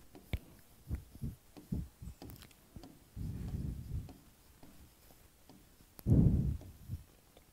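Chalk tapping and scratching on a blackboard as words are written, in a scatter of faint short clicks. Two dull low thumps come in the middle and about six seconds in, the second the louder.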